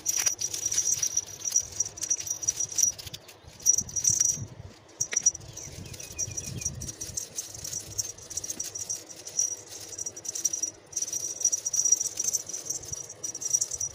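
An insect trills steadily at a high pitch, with a fast flutter and a few short breaks. Underneath are soft rustling and pats from a kitten batting at a string toy in a lap.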